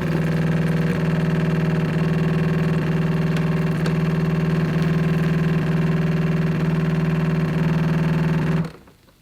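Jura E8 super-automatic espresso machine running a steady motor hum during a two-espresso cycle, cutting off sharply near the end.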